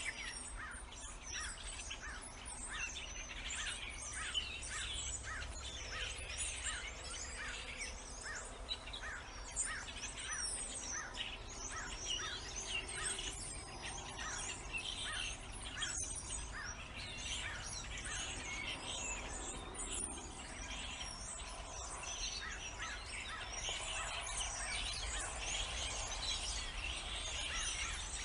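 A chorus of wild birds: many overlapping chirps and songs, with one short call repeated about twice a second through the first half, over a low steady outdoor rumble.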